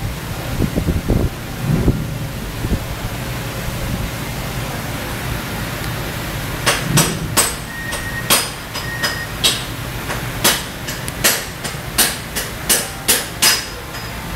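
A hammer striking metal about a dozen times in an uneven rhythm, each blow ringing briefly, starting about halfway through. A steady background hum runs underneath.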